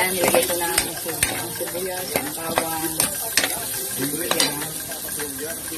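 Metal spatula stirring garlic, onion and ginger frying in oil in a metal pan: steady sizzling with repeated sharp scrapes and clinks of the spatula against the pan.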